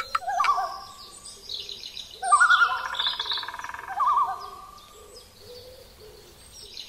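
Bird calls: a wavering, warbling call comes three times, with high chirps above it, then grows quieter near the end.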